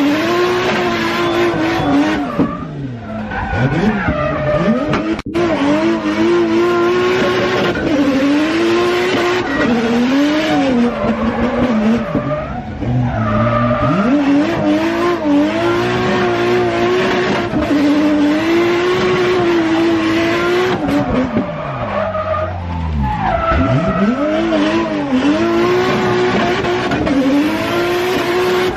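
A race car's engine, heard from inside the cabin, revving hard, its pitch repeatedly climbing and dropping, with tyre squeal as the car is driven hard.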